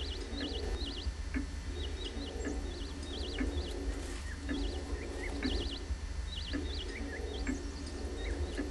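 Bird-chirp ringtone playing: high, quickly warbling trills repeated in short groups, over a steady low hum.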